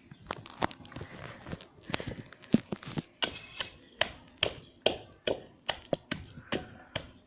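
Pestle knocking in a kundi (mortar), crushing soaked almonds and poppy seeds into a paste. Repeated knocks, irregular at first, then a steady beat of about two to three a second.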